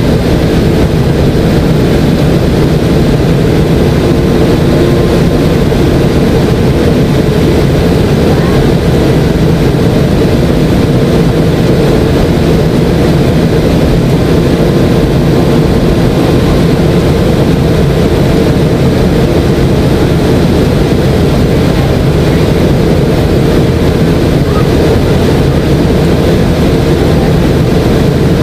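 Steady cabin drone of a McDonnell Douglas MD-90 in its climb: a constant rush of airflow with a low, even hum from its two tail-mounted IAE V2500 turbofans.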